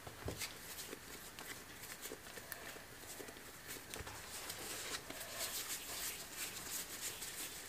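Faint, irregular soft taps and rustles of hands handling and rounding pieces of bread dough on a floured stone countertop.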